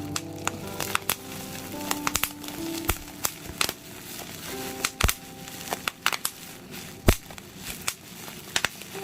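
Bubble wrap being popped, sharp single pops in an irregular run with some crinkling of the plastic; the loudest pops come about five and seven seconds in. Soft background music plays underneath.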